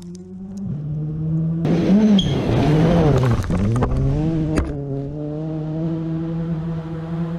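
A rally car passing on a gravel stage: its engine pitch rises and falls for a couple of seconds around the middle, over the rush of tyres and gravel, with a sharp crack near the end of the pass. A steady low hum continues beneath.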